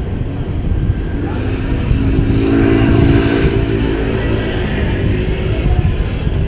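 A motor vehicle's engine going by: a steady pitched hum swells about two seconds in and fades a few seconds later, over a constant low rumble.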